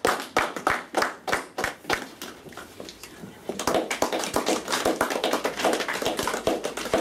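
A group of people clapping in a steady rhythm, about three claps a second, turning into denser, looser clapping from about halfway through.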